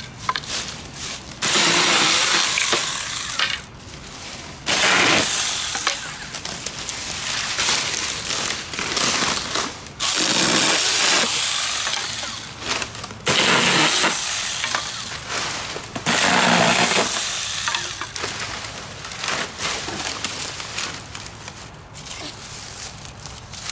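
Hand saw cutting through wood in several short spells of strokes, with pauses between.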